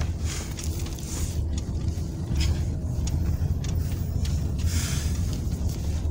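Toyota Corolla cabin noise while driving slowly: a steady low engine and road rumble, with a few brief rustles.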